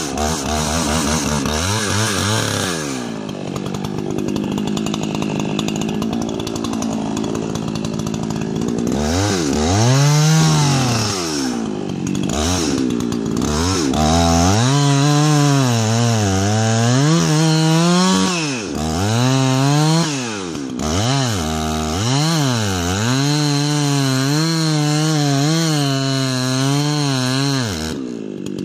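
Two-stroke chainsaw cutting into a large ponderosa pine trunk. The engine runs fairly steadily at first, then from about a third of the way in its speed repeatedly drops and climbs again, roughly once a second.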